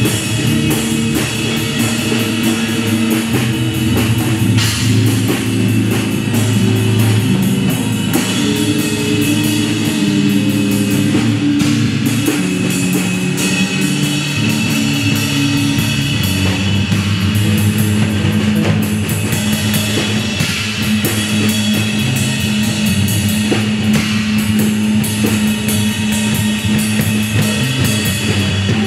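An electric bass, a drum kit and an electric guitar playing loud, dense live rock-style music together without a break. Held low bass notes shift in pitch under constant drum and cymbal strokes.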